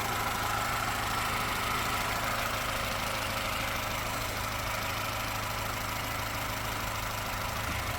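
Vauxhall Astra H's 1.4-litre Z14XEP four-cylinder petrol engine idling steadily and evenly, just rebuilt with a new head gasket and timing chain.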